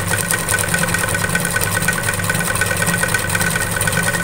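Sewing machine running steadily at speed, its needle pounding up and down in a fast even rhythm while sewing free-motion running stitch (granite stitch) into fabric held in an embroidery hoop.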